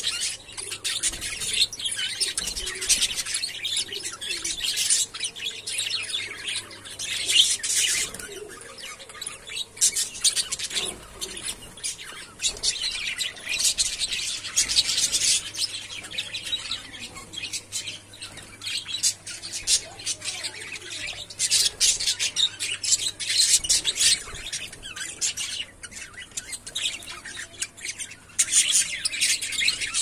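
A flock of budgerigars chirping and chattering: a dense, high-pitched twittering that swells and fades without pause.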